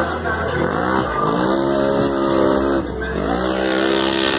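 Side-by-side UTV engine revving hard in mud. The pitch climbs about a second in and holds, dips briefly near three seconds, then climbs again and holds.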